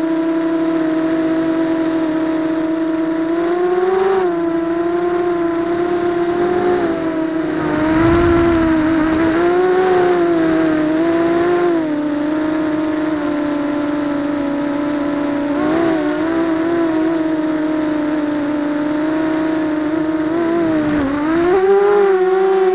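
ZMR250 racing quadcopter's motors and propellers whining as heard by its onboard 808 #16 keychain camera, the pitch rising and falling with the throttle. It grows louder with a brief pitch rise about eight seconds in and again near the end.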